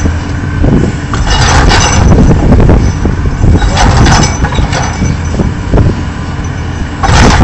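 Caterpillar tracked excavator's diesel engine rumbling under load as its arm breaks into a masonry wall, with bursts of cracking and falling rubble a couple of times and again near the end.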